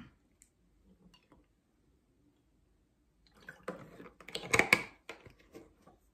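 Clear plastic bottle of snake juice being handled, giving a short run of crinkling and clicking noises about halfway through, loudest for a moment just before the end.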